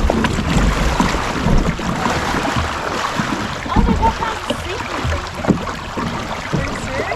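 Shallow river rapids rushing and gurgling around a kayak that keeps running aground in the riffle.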